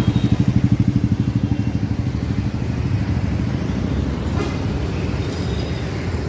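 City street traffic: a nearby vehicle engine puttering in a fast, even pulse for the first couple of seconds, then a steadier low rumble of passing traffic, with faint horn toots.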